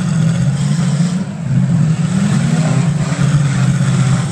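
Demolition derby cars' engines running loud, with one revving up in a rising note partway through.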